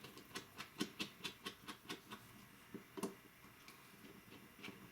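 Small screwdriver backing out the tiny screws of a Samsung Galaxy Note 3's rear housing: a run of light, quick clicks, a pause about two seconds in, and more clicks near the end.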